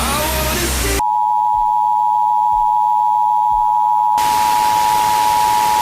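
FM radio hiss for about a second, then the Emergency Alert System attention signal: two steady tones sounding together just under 1 kHz (853 and 960 Hz), holding an even level. About three seconds after the tones begin, hiss returns underneath them.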